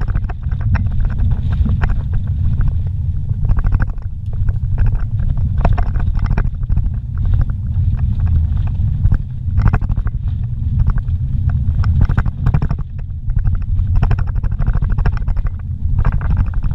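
A vehicle driving over a rough unpaved off-road track, heard from inside the cab: a steady low engine and road rumble with frequent knocks and rattles from the bumps.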